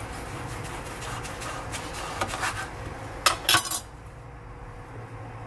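Chef's knife sawing through salt-crusted dried beef on a wooden cutting board, with scraping strokes and then a few sharp clatters of metal on wood about three and a half seconds in.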